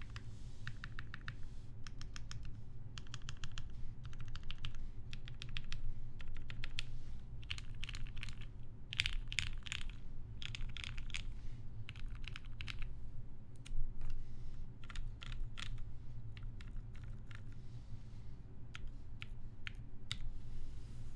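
Typing on a TGR Jane v2 custom mechanical keyboard with lubed Gateron Black Ink linear switches on an FR4 half plate, under GMK keycaps: bursts of rapid keystrokes with short pauses, thinning to separate single key presses in the last several seconds.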